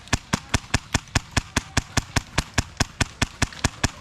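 Airsoft gun firing in a steady, even stream of sharp cracks, about five shots a second.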